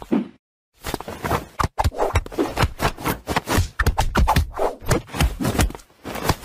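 Wooden whack-a-mole cat toy knocked and rattled as a kitten bats at it: quick, irregular wooden knocks and clatters, with a brief gap about half a second in.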